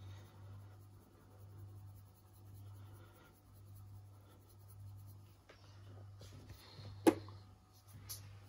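A twist pepper mill grinding black pepper: a quiet gritty scraping that swells and fades with each turn, about once a second. A sharp knock comes about seven seconds in.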